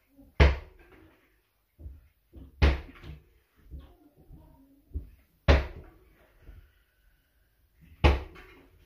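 A bicycle wheel with a knobbly tyre bouncing on a hard floor: four loud thumps about two and a half seconds apart, with smaller knocks and rattles between them.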